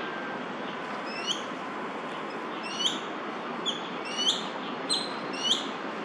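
Male crested goshawk calling: six short, high notes that sweep upward. The first is faint, about a second in, and the rest come faster, about one every two-thirds of a second. Steady traffic hum runs underneath.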